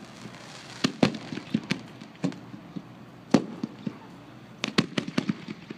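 Aerial fireworks display: about a dozen sharp bangs and pops at irregular intervals, the loudest about a second in and again a little past halfway.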